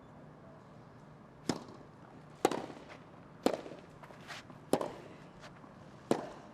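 Tennis rally: five sharp racket-on-ball strikes about a second apart, the first about one and a half seconds in.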